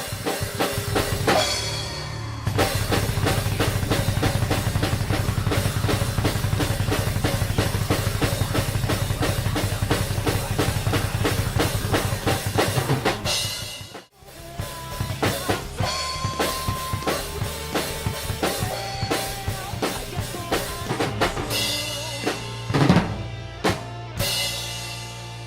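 Drum kit played along to a recorded rock song, with bass drum and snare to the fore. A fast, dense, driving beat stops suddenly about halfway through, then gives way to a sparser beat under held guitar notes.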